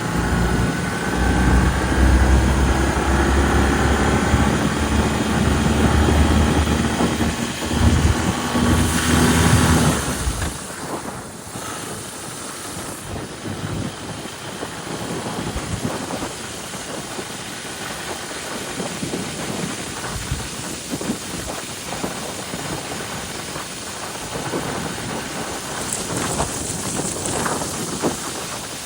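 Wind buffeting the microphone on a moving 2005 BMW R1200RT motorcycle, with the bike's flat-twin engine running steadily underneath for the first ten seconds or so. After that the engine drops out of hearing and the rough, gusting wind noise takes over.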